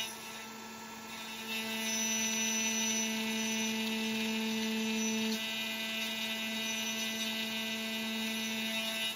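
Makera Carvera Air desktop CNC milling a slot in aluminum plate with a single-flute carbide end mill, its spindle at 12,000 rpm: a steady whine of several tones. It gets louder about a second and a half in and eases a little about halfway through.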